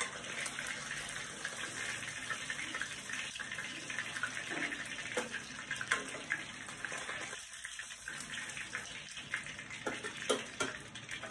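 Fish pieces shallow-frying in hot mustard oil in a steel kadhai: a steady sizzle and crackle, with scattered sharp pops and clicks.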